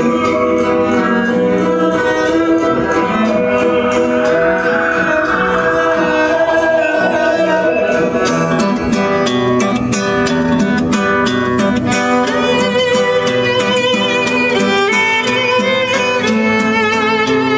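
Music with a lead violin and plucked guitar over a steady beat, played loud through a car audio system.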